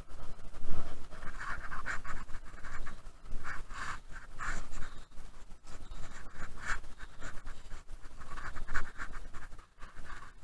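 Irregular rustling and scraping as gloved hands pull wet pond weed and mud off a fishing magnet and its rope.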